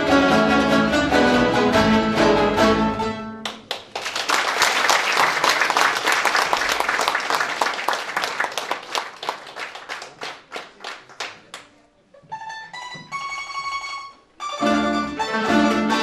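A plucked string band with double bass finishes a lively tune a few seconds in. Audience applause follows and dies away. A few single notes ring out, then the band starts the next tune near the end.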